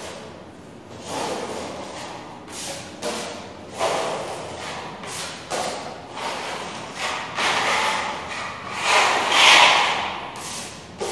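Steel putty knife scraping and spreading wall putty across a plastered wall in repeated strokes, each a short rasping swell, about one a second, loudest near the end.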